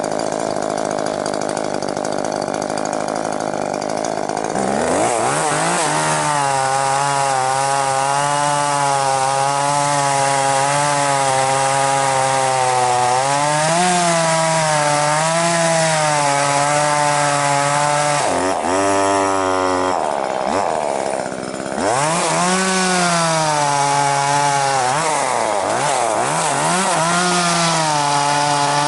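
Two-stroke chainsaw cutting wood at high revs. It runs steadily for the first few seconds, then its pitch wavers up and down as the chain loads in the cut. Just past the middle the revs drop away for a few seconds, then climb back and it cuts on.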